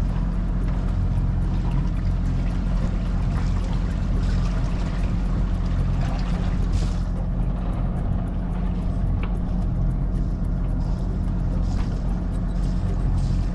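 A boat's engine running at a steady speed, a constant low hum, with water rushing and splashing along the hull as the boat moves.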